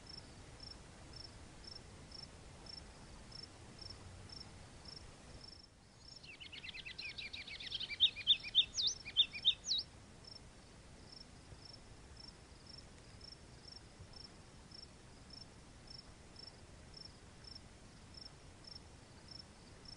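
A cricket chirping faintly and evenly, about twice a second. From about six to ten seconds in, a louder run of quick, high-pitched calls rises and falls in pitch.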